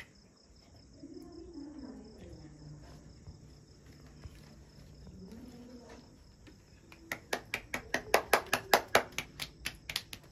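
Rapid rhythmic hand clapping, about five sharp claps a second, starting about seven seconds in and loudest near the end, after a stretch of faint murmured voices.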